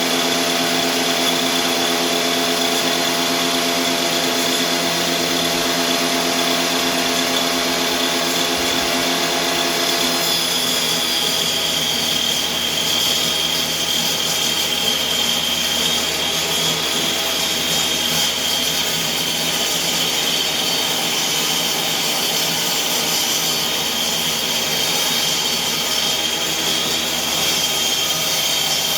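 Electric power tool running continuously in a woodshop, a steady motor sound whose tone changes about ten seconds in as a high whine comes up.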